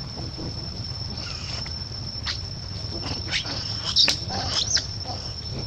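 Steady high-pitched insect drone, like crickets or cicadas, with a few short high squeaks and clicks about four seconds in.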